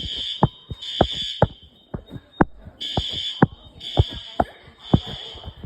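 Fire alarm horns, System Sensor L-Series, sounding the temporal-3 evacuation pattern: three high-pitched blasts about a second apart, a pause of over a second, then three more. Regular thumps about twice a second run underneath.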